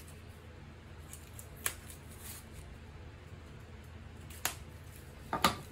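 Utility knife cutting through a flat cardboard mailer, with a few sharp clicks of the cardboard, the loudest pair near the end, over a low steady hum.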